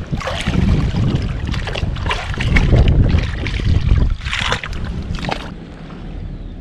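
Muddy shallow water splashing and sloshing as hands dig through the bottom sediment, in a run of repeated splashes that die down about a second before the end. Wind rumbles on the microphone underneath.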